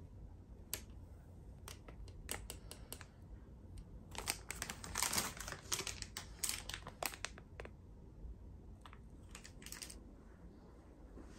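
A run of light clicks and taps, like typing: a few scattered ones at first, then a dense flurry in the middle, then a few more near the end.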